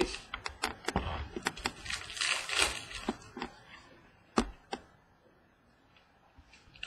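Baseball trading cards being flipped through by hand: a quick run of clicks and soft slides as the cards snap and rub against each other, thinning out after about four and a half seconds.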